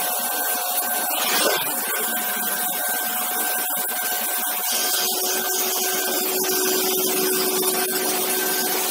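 Five-axis CNC machining centre running: a steady mechanical hiss with a faint high whine, and a lower steady tone joining about halfway through.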